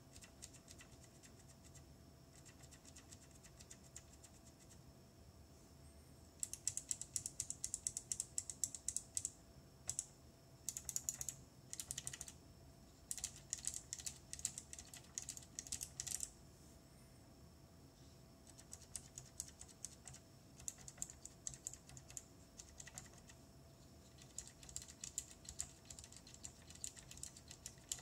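Typing on SMK mechanical keyboard switches: dense runs of rapid keystrokes starting about six seconds in, a short pause, then a second run of typing.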